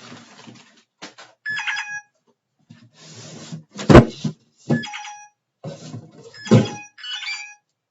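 Packages thudding as they are dropped or tossed down, the heaviest impact about halfway through, with three short bursts of bell-like ringing tones in between.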